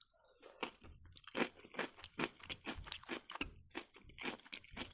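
Close-miked chewing of a mouthful of napa cabbage kimchi: crisp crunches about four a second, starting just under a second in.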